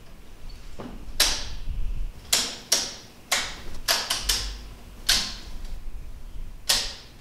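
Circuit breakers in an electrical panel being flipped on one after another, switching on the room's lighting circuits: about nine sharp snapping clicks at uneven intervals.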